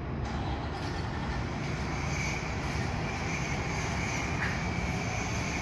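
Diesel fire engine (a 2019 Pierce Impel pumper) idling with a steady low rumble in the station bay. A faint, steady high whine joins about two seconds in.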